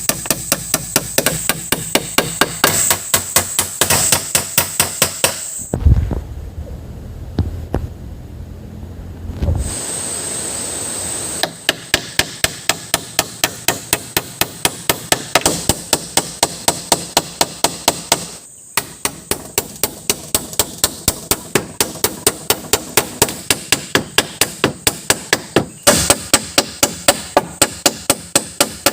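Rapid, even hammer blows on wood, about three or four a second, with a few seconds' break some six seconds in. A steady high whine runs underneath.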